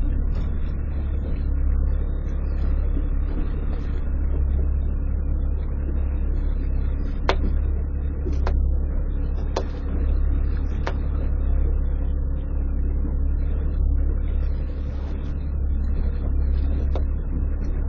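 Wind buffeting the microphone in a heavy low rumble that swells and eases with the gusts. Four sharp clicks about a second apart sound near the middle.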